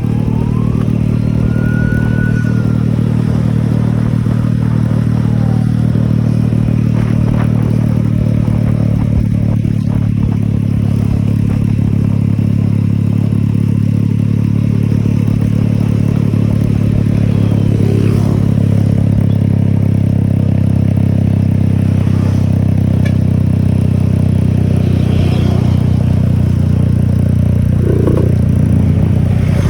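Yamaha F1ZR's two-stroke single-cylinder engine running steadily at an even speed. Its exhaust is tuned for the deep 'ngorok' (snoring) sound.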